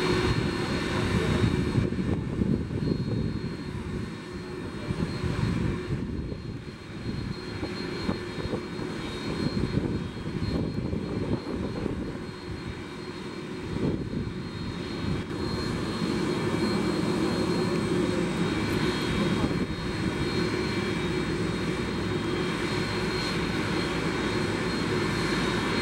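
Airbus Beluga ST's twin General Electric CF6-80C2 turbofans running on the ground: a steady jet engine noise with a high whine over it, easing off slightly in the middle and then holding steady.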